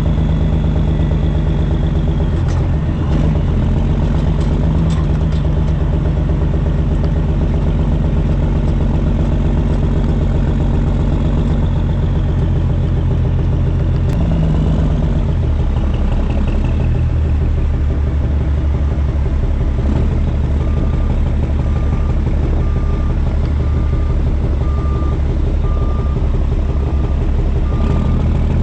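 Caterpillar C13 diesel in a Kenworth W900B dump truck running, heard from inside the cab. About halfway through its pitch drops, and it settles to a lower, steady speed. In the last seven seconds a backup alarm beeps steadily, a little more than once a second.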